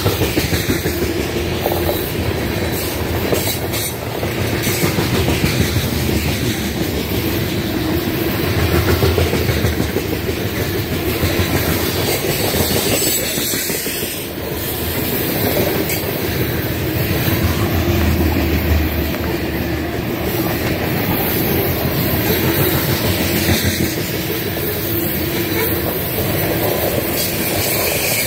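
Loaded grain train's covered hopper cars rolling past, a steady rumble of steel wheels on the rails that swells and eases every few seconds.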